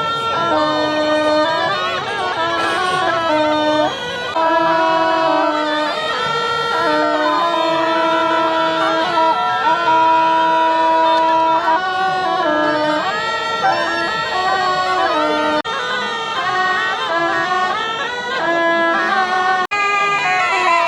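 Reedy wind-instrument music: a melody of held notes over a lower sustained tone, with two brief breaks near the end.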